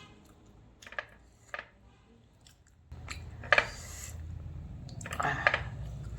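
Close-up chewing and crunching of food, with sharp crunches about a second in, then louder crunching from about three seconds on.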